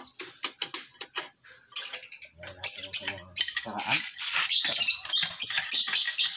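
Hand-wrench work on a bare engine block: sharp metal clicks, then from about two seconds in a louder, dense run of high-pitched squeaking and chirping.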